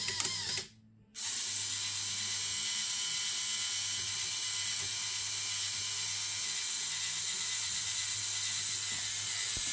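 Lego Technic gondola lift model running under Mindstorms EV3 control: electric motors and plastic gears make a steady mechanical whir with a low hum, after a brief drop-out about a second in.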